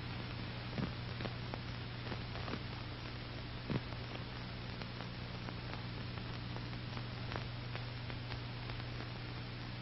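Steady low hum and hiss with scattered faint clicks: the background noise of an old film soundtrack.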